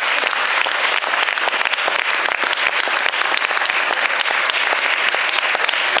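Audience applauding: dense, steady clapping throughout.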